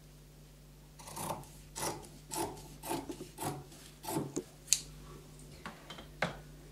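Dressmaking scissors snipping through fabric, about seven cuts at roughly two a second, followed by two sharp clicks.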